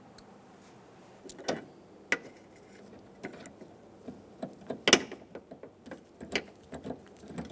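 Scattered clicks and clinks of hand tools being handled: a socket on an extension with a nut set in it. The loudest clink comes a little past the middle.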